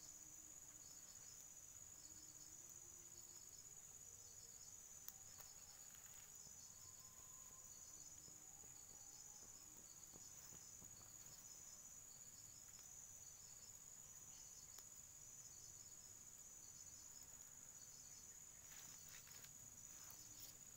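Faint steady high-pitched insect drone with other insects chirping in short regular pulses over it, the sound of a forest insect chorus; one faint click about five seconds in.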